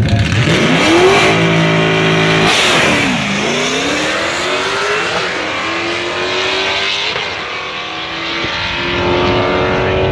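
Cammed 1994 Camaro LT1 V8 with its exhaust cutout open, launching hard off the drag-strip start line and accelerating away at full throttle. The engine note climbs through each gear and drops back at every upshift of the six-speed manual, about every two seconds.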